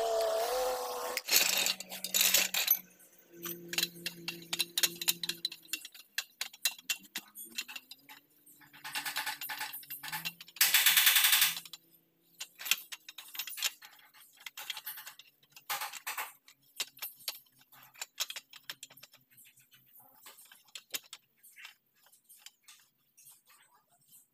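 Hand tools and metal engine parts clicking and clinking during hands-on engine assembly, with two short hissing rushes about nine and eleven seconds in.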